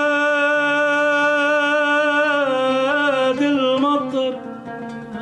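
A man sings a long held note in Arabic classical style, then breaks into ornamented, wavering turns before the voice ends about four seconds in. An oud plays underneath and carries on quietly after the voice stops.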